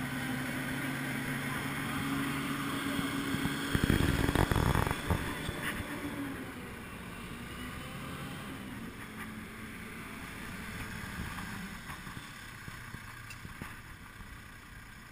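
Truck-mounted crane's engine running steadily, with a loud burst of low rumbling noise about four seconds in. After about six seconds the engine hum drops away, leaving a fainter rumble.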